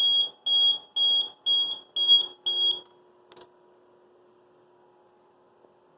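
Fire alarm system's piezo sounder beeping at one high, piercing pitch, about two beeps a second during an alert-mode test. The beeping stops about three seconds in, followed by a single click and a faint steady hum.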